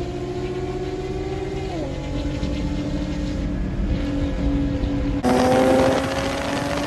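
Sports car engines under hard acceleration: a steadily rising engine note drops in pitch at a gear change about two seconds in, then climbs again. About five seconds in it becomes louder, with another rising engine note.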